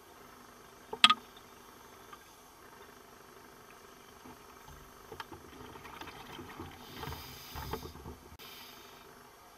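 Underwater sound of a scuba diver's breathing. A sharp knock comes about a second in. Then exhaled bubbles from the regulator rumble for several seconds, and an inhalation hiss starts near the end.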